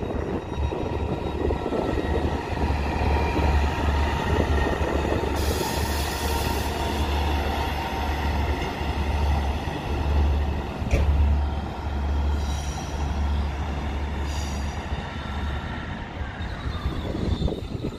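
Northern diesel multiple-unit train pulling out and running away along the tracks, its engines giving a steady low drone that fades out near the end. A brief hiss comes about five seconds in, a single sharp knock about eleven seconds in, and short high wheel squeals around twelve and fourteen seconds.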